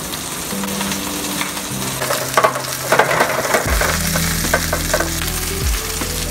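Chicken frying skin side down in hot rosemary olive oil in a nonstick pan: a steady sizzle. Over it come light clicks and taps of sliced mushrooms being spread by hand across a metal sheet tray.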